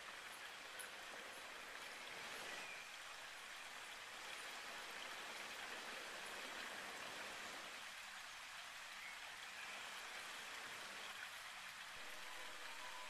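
Steady, even hiss of background noise, with no distinct animal calls or impacts.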